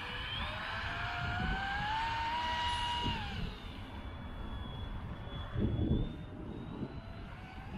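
Kyosho Jetstream 888VE RC boat's 2080Kv brushless outrunner motor whining as the boat runs across the pond, rising in pitch over the first three seconds, then falling and fading to a fainter steady whine. A low gust of wind noise comes about six seconds in.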